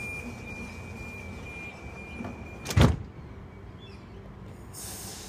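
Passenger train's door-closing warning tone sounding steadily and high, then the sliding doors slam shut with one sharp, loud bang about three seconds in.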